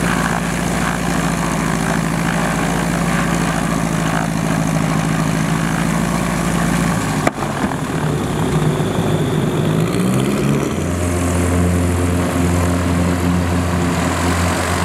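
Bölkow Bo 207's four-cylinder Lycoming engine and propeller running steadily at low power close by. After a cut about seven seconds in, the engine note climbs as power comes up, then holds steady at full power for the take-off roll.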